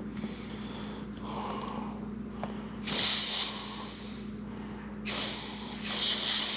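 Compressed air hissing into a Wilwood brake caliper to force its stuck pistons out: one burst about three seconds in lasting over a second, and a second starting about five seconds in that keeps going.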